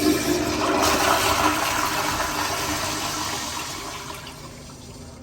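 American Standard Madera toilet flushing: a loud rush of water that gradually fades and dies away near the end.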